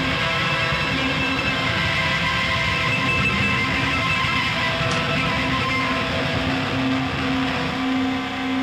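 Rock music with guitar, playing as the soundtrack.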